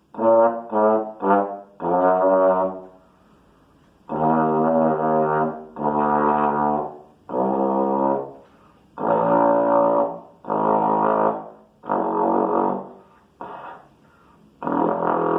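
Tenor trombone with an F attachment (transpositor) playing a series of separate notes in its low register, three short notes then longer held ones with breaths between, showing the extra low range the attachment gives.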